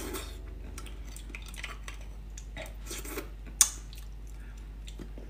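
Close-up eating sounds of braised beef bone marrow: soft wet mouth sounds and small clicks of a thin metal utensil scraping against the bone, with one sharp click about three and a half seconds in.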